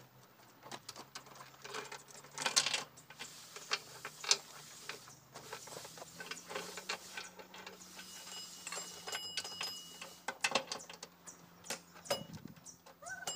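Heavy steel roller chain clinking and rattling as it is handled and fitted into the tandem drive housing of a Komatsu GD511-A motor grader: irregular metal clicks and clanks, over a faint steady hum.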